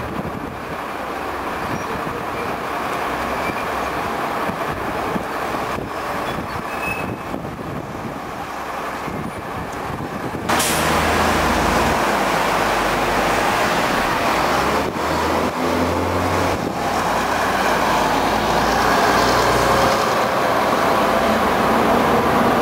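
MCW Metrobus double-decker bus's diesel engine running as the bus moves along a street, with traffic noise around it. About ten seconds in the sound steps up suddenly and becomes louder, with the low engine note more prominent.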